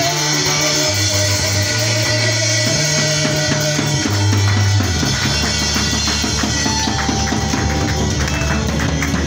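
Live church praise band playing: an electric bass guitar holds long notes over a steady drum kit beat. The bass moves to a lower note about halfway through.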